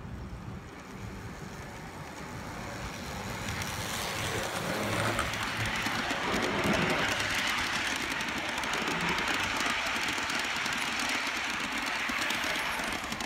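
G-scale model trains running on garden-railway track: metal wheels rattling and clicking on the rails as a freight train passes close by on the parallel track, growing louder about four seconds in.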